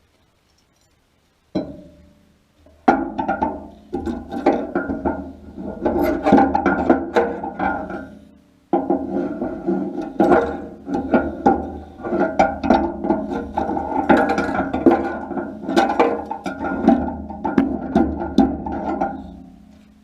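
Repeated hammer blows on the steel of a feeder bucket, each strike ringing at the same metallic pitches, a few blows a second. A single blow comes about a second and a half in, the steady hammering starts a second later, and there is a brief pause about halfway.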